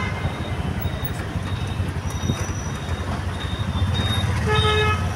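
Auto-rickshaw engine running steadily in moving city traffic, heard from inside the open cab. A vehicle horn honks briefly near the end.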